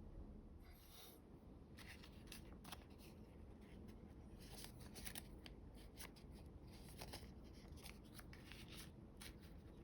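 Coloured origami paper being handled and folded: scattered soft rustles and short crisp paper ticks, faint and irregular.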